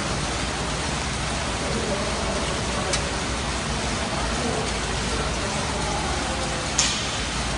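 Steady rushing background noise with faint voices under it, broken by a small click about three seconds in and a sharper, louder clack near the end.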